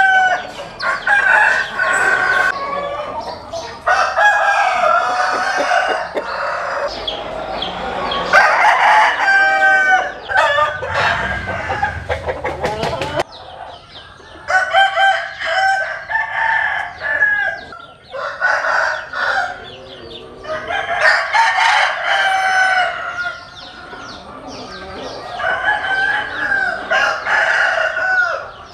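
Several roosters crowing one after another and over each other, with clucking in between.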